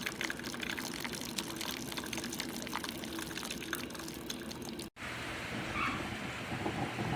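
Hot water from a Simply Good Coffee drip brewer's spray head splashing and pouring onto the grounds, coming out mainly as a jet from one hole rather than an even shower. About five seconds in the sound cuts off and changes to a steadier hiss.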